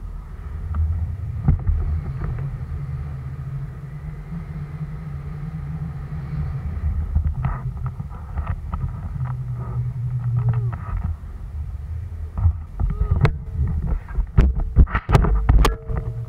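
Wind buffeting the action camera's microphone during a parasail flight, a steady rough rumble. Near the end come a run of sharp knocks and scrapes as the harness-mounted camera is handled.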